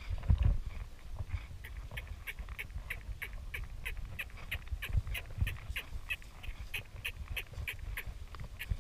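Horses being ridden at a walk on sand, with a regular run of short squeaks or clinks from the saddle and tack, about three a second in step with the stride, starting about a second and a half in. Wind rumbles on the microphone at the start.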